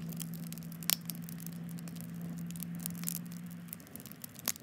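Wood fire in a steel burn barrel crackling and popping, with a sharp pop about a second in and another near the end. A steady low hum runs underneath and stops near the end.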